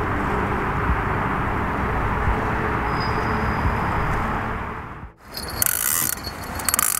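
Steady rushing of wind and choppy water around a small boat, cutting off abruptly about five seconds in. Brief scraping and clicking follows near the end.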